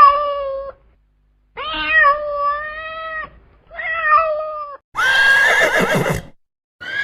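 Three long, drawn-out animal calls, each held at a steady pitch, then about five seconds in a high, quavering horse whinny.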